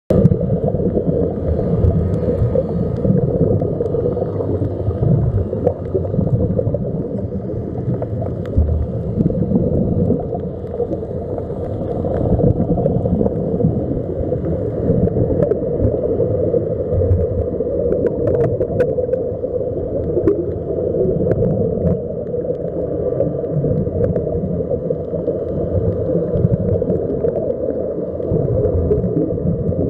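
Underwater sound picked up by a submerged camera: a steady muffled rumble with bubbling, from air escaping the sea-walker helmets, and a few faint clicks.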